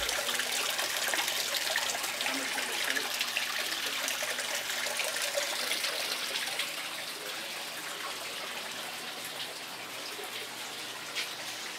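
Water pouring and splashing into a live-bait tank from its inlet pipe, a steady churning hiss that gets a little fainter in the second half.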